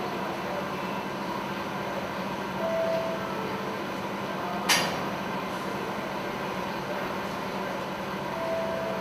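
Steady running noise of slurry-processing plant machinery, with a low hum. A short single tone sounds twice, and one sharp click comes about halfway through.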